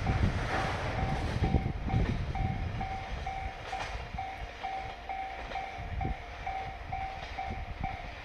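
Tail end of a freight train of tank wagons clattering over rail joints, fading as it moves away. Over it a level crossing warning bell rings steadily at about two strokes a second.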